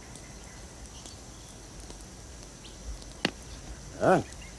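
A short pitched vocal call that rises and falls, about four seconds in, over a steady faint high hiss of outdoor ambience. A single sharp knock comes about a second before it.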